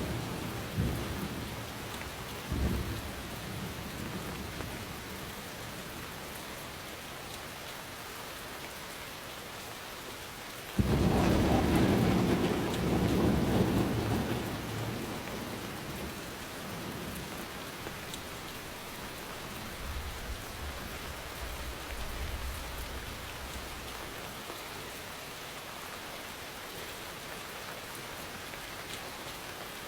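Steady rain with thunder. A rumble dies away at the start, then a sudden loud thunderclap about eleven seconds in rolls on for a few seconds, and a fainter low rumble follows later.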